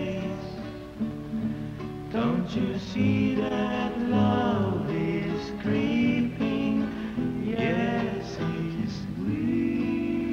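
Soundtrack music with a guitar and a voice, its pitches sliding up and down in places.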